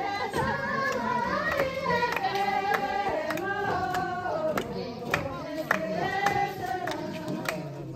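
Men and women singing a traditional Mustang dance song together in unison. The melody rises and falls in long phrases, with sharp taps sounding every so often.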